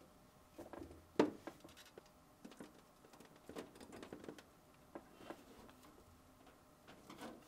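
Faint scattered clicks and rustles of hands handling small plastic wire connectors and pliers while crimping the connectors onto thermistor wires, with one sharper click about a second in.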